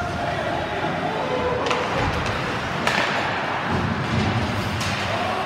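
Ice hockey game heard from the stands: a steady rink din with about three sharp knocks of sticks and puck on the ice and boards.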